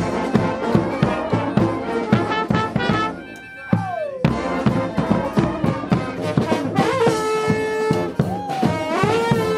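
Street brass band playing: horns over a steady drum beat, with notes that slide up and down. The music drops away about three seconds in and comes back abruptly about a second later.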